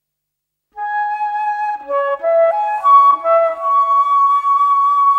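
Silence, then about a second in a solo flute plays a short melody of stepping notes that settles on one long held note.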